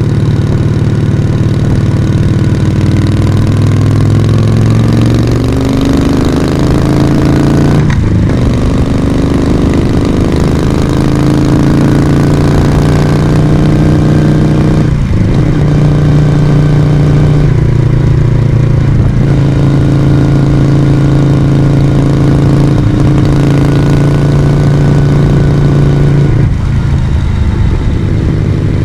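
Moto Guzzi V35's air-cooled transverse V-twin engine and exhaust under way. The pitch rises through the first several seconds, with brief breaks about eight and fifteen seconds in like upshifts. It then runs at a fairly steady pitch and drops off near the end.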